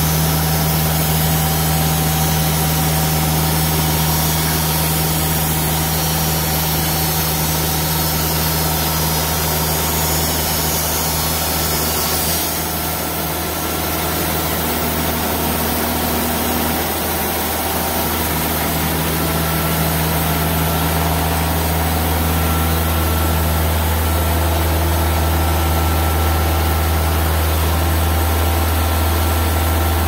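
TimberKing 2000 bandsaw sawmill running steadily with a low engine hum as its saw head travels along an eastern red cedar log, cutting a slab. The loudness dips slightly for a few seconds about halfway through.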